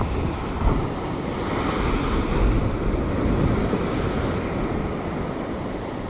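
Ocean swell surging and breaking on a sandstone rock ledge, a heavy wash that builds to a peak a couple of seconds in and then eases, with wind buffeting the microphone.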